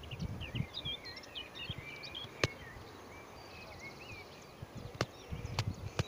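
Wild birds singing, a mix of quick chirps and warbling phrases, with a few sharp clicks, the loudest about two and a half seconds in, and a low wind rumble on the microphone near the end.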